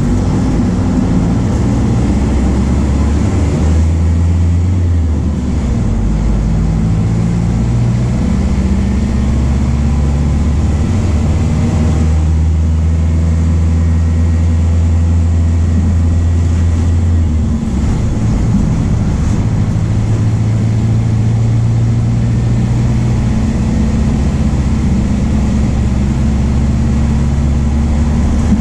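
MAN D0834 four-cylinder turbodiesel of a VW 17.230 OD bus running under way. The engine note steps up and down in pitch several times as the revs change.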